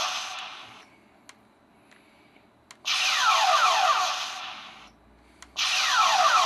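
Master Replicas Star Trek assault phaser replica firing its electronic blast sound: a buzzing run of quickly repeating falling sweeps that lasts about two seconds and fades out. A blast dies away in the first second, a new one starts about three seconds in, and another about five and a half seconds in, with short clicks in the gaps between them.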